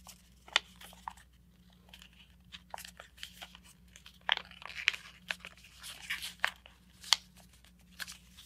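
A sheet of paper being folded by hand: irregular soft crinkles and sharp crackles as thick, layered folds are eased open, the creases reversed and a tab tucked in behind the other layers.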